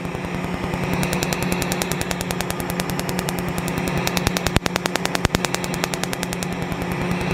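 Tattoo-removal laser firing a rapid train of sharp snapping pulses, about ten a second, as the beam shatters the tattoo ink, over a steady machine hum.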